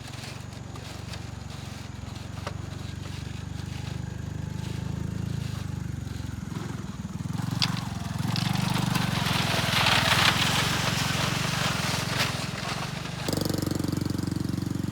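A vehicle engine running steadily with a low, even drone. A rushing hiss swells in the middle and fades again, and the engine sound changes abruptly shortly before the end.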